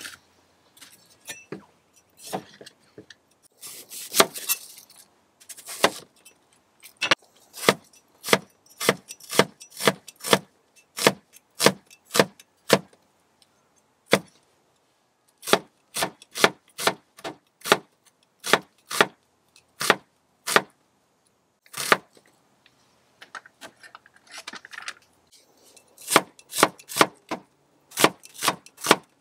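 A cleaver chopping onion and garlic on a wooden cutting board: sharp knocks of the blade striking the board, in runs of about two strokes a second, with a few softer scraping and slicing sounds between the runs.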